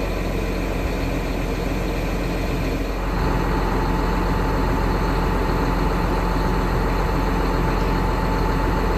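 Massey Ferguson tractor engine running steadily with the single-row maize chopper driven and turning. About three seconds in the sound grows louder and a steady whine comes in.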